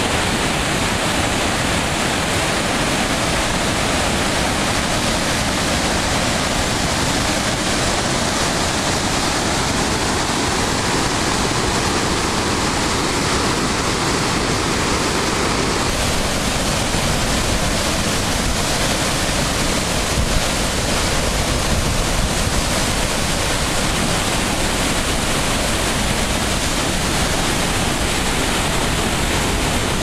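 Loud, steady rush of a river waterfall: churning whitewater pouring over rocks in a gorge. The tone of the rush shifts slightly about halfway through.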